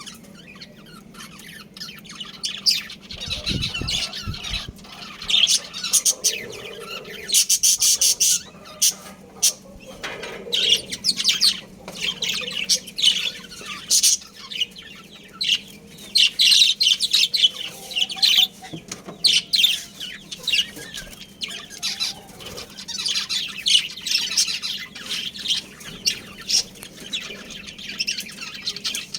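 Budgerigars chirping and chattering without pause, a dense run of quick high warbling chirps, with occasional sharp clicks.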